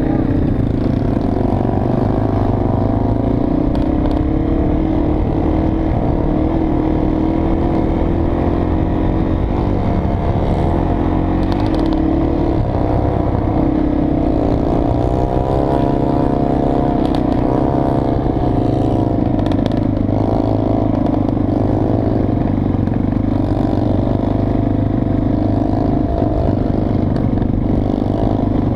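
Dirt bike engine running close up while riding, its pitch rising and falling as the throttle opens and closes.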